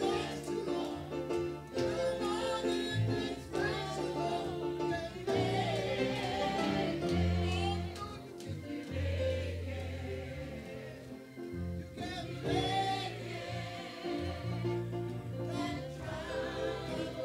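Church choir singing a gospel song over held low instrumental notes.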